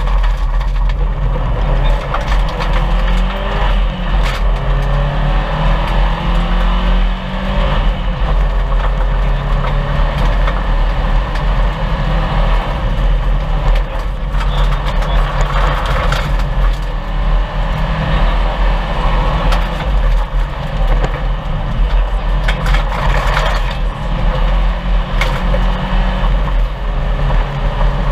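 1998 Subaru Impreza 2.5 RS's flat-four engine driven hard at rally pace, its pitch climbing and dropping repeatedly as it revs through the gears, over steady road roar with frequent sharp knocks.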